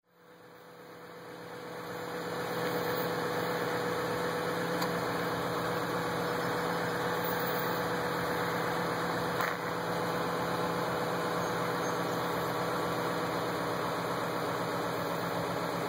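A vehicle engine idling with a steady hum, coming up to a steady level over the first two seconds or so.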